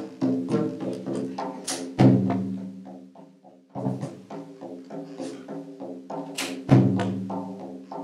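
Taiko drums played in a rhythmic ensemble passage, a run of quicker strikes with heavy accented hits about 2 seconds in and again near 7 seconds. Sustained pitched notes ring beneath the drumming.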